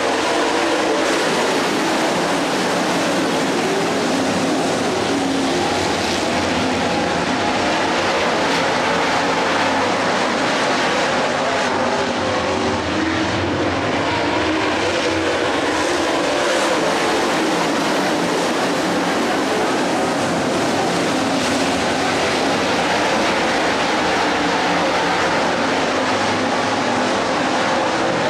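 A field of dirt late model race cars circling the track, their V8 engines running together in a loud, steady drone.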